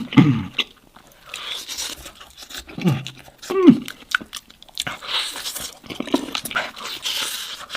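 Crunchy chewing and biting into food, with many short crackling crunches and a couple of brief low hums or grunts about three seconds in.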